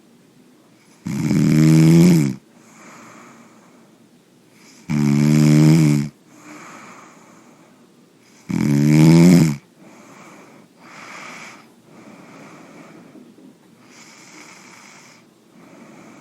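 A person snoring loudly three times, each snore lasting about a second and coming about every three and a half seconds, with softer breathing in between. In the last six seconds there are only quieter breaths.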